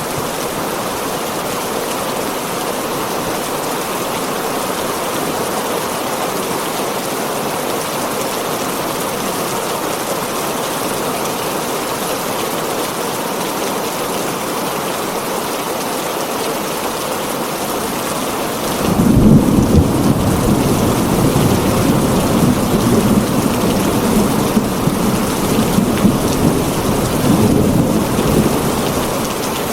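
Heavy rain drumming steadily on a tin roof. About two-thirds of the way through, a loud rolling thunder rumble breaks in suddenly and rumbles on for about ten seconds before fading.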